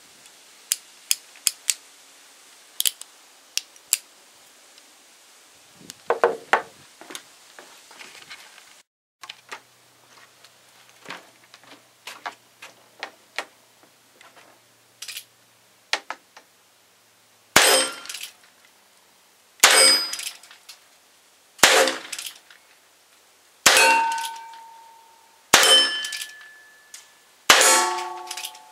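Small clicks of a Heritage Rough Rider rimfire revolver being handled and its cylinder loaded, then six rimfire pistol shots about two seconds apart. The last few shots are each followed by a brief ringing tone.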